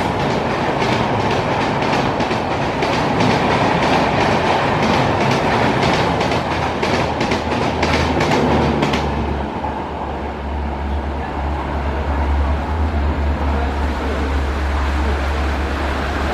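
Express train running through a station at speed, its wheels clicking over the rail joints in a quick rhythm. After about nine seconds the clicking ends, leaving a steady low rumble and hiss.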